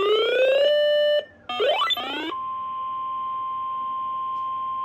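Electronic alarm tones. A buzzy tone glides upward and holds, breaks off, then comes back as a quick run of rising sweeps. About two seconds in it gives way to a single steady tone near 1 kHz, the NOAA Weather Radio warning alarm tone that comes before a severe thunderstorm warning.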